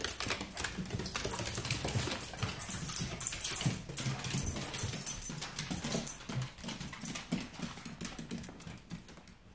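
Excited Shih Tzus waiting for their food: dog noises with many quick clicks of claws on a hardwood floor, dying down near the end.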